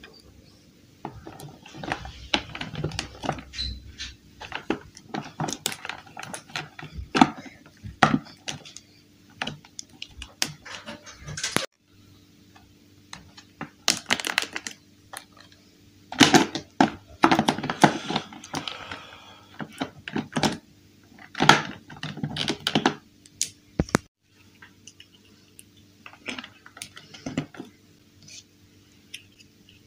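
Hard plastic toy-house building-block pieces clicking and clacking as they are handled and snapped together, in irregular clusters of clicks with louder bursts in the second half.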